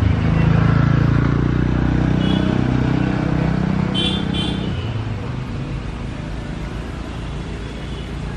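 Engine of a road vehicle running close by, loudest in the first half and fading after about five seconds into street noise. Two short high chirps sound about four seconds in.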